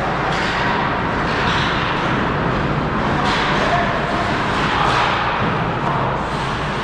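Ice hockey game in play: a steady rumbling din of skating on the ice, with a few knocks.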